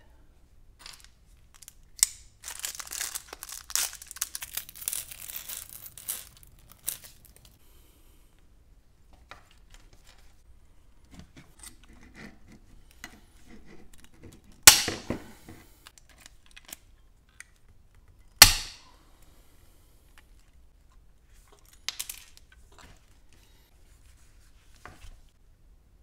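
Leather being handled and creased with a rustling sound. Then a hand pop-rivet tool fires with two loud sharp snaps about four seconds apart and a softer one later, each snap the rivet's mandrel breaking as the rivet sets through the leather.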